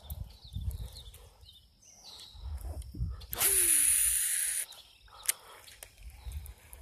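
Footfalls on the grassy bank, then a spinning-rod cast: a swish and the line hissing off the reel for over a second, followed by a single sharp click, the bail snapping shut.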